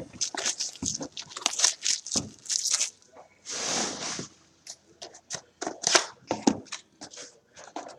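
Cardboard trading-card boxes handled on a tabletop: a run of small knocks, taps and rustles, with one longer rustling, tearing-like sound about three and a half seconds in.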